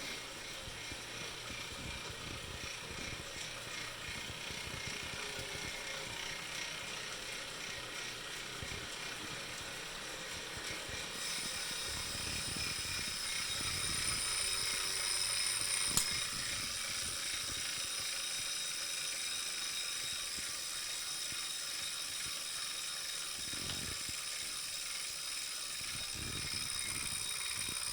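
Wahoo Kickr Core direct-drive bike trainer running, a steady whir with an unwanted ticking noise coming from the trainer. About a third of the way in, a higher whine joins the whir.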